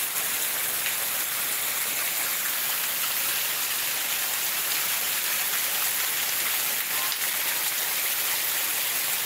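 Steady rain falling on wet concrete and puddles, mixed with the rush of runoff water spilling down a small flight of stone steps.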